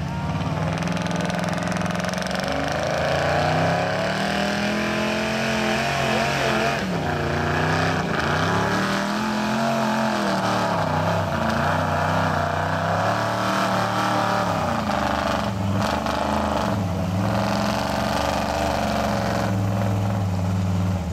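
A gasoline pickup truck's engine runs at high revs, pulling a weight-transfer sled. Its pitch climbs and sags over and over, dipping several times as the load comes on, and stays loud throughout.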